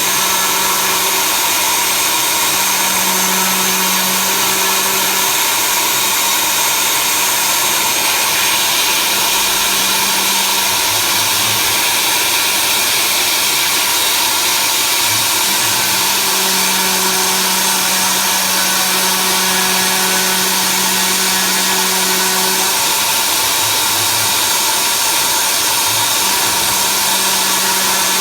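CNC machine running under program control: a steady whirring spindle, with a low motor hum that starts and stops every few seconds as the axes move.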